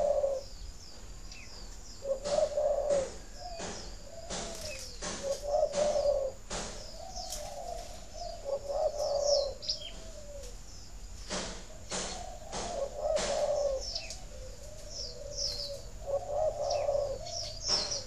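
Spotted doves cooing in repeated low phrases every two to three seconds, the kind of calling used to stimulate caged doves to breed. Small birds chirp high above the cooing, with scattered sharp clicks.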